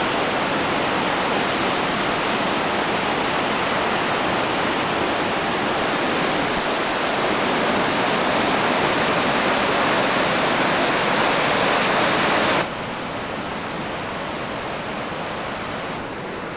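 Bourne river in flood: a torrent of white water rushing in a steady, loud wash of noise, swollen by a cloudburst. The sound drops suddenly in level about three-quarters of the way through.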